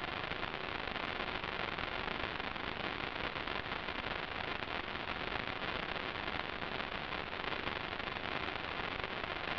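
Steady, even static hiss on the audio channel of an analog FPV video link, with no motor or propeller tone in it.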